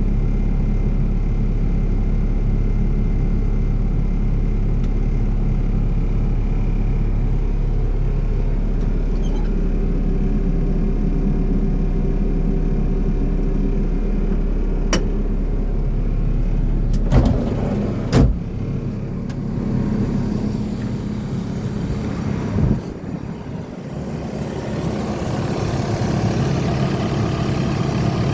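Caterpillar 308D CR excavator's diesel engine running steadily. Two sharp clunks come a little past halfway, then a third knock a few seconds later, after which the engine note drops and builds again.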